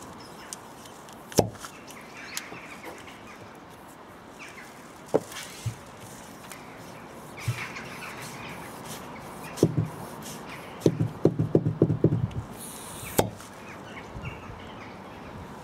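A rubber toilet plunger worked against a Rover 75's metal passenger door to pull out a dent. It gives single sharp pops as the cup lets go, about 1.5, 5 and 13 seconds in, and a quick run of short knocks and pops from about 10 to 12 seconds. The dent does not come out.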